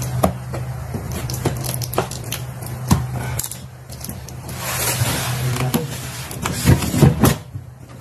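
Cardboard box being worked open by hand: scraping and rustling of cardboard and packing tape with many small clicks, a few louder knocks near the end, over a steady low hum.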